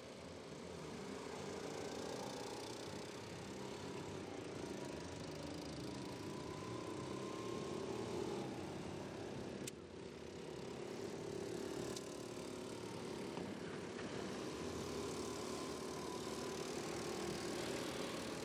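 Small go-kart engines buzzing as the karts lap the circuit. The pitch rises and falls gently with the throttle through the turns.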